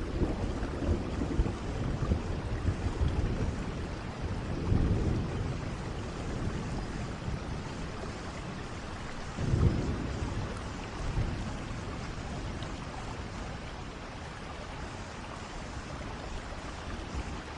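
Steady rain with rolling thunder: a low rumble about five seconds in, then a louder peal that starts suddenly about halfway through and dies away over a couple of seconds.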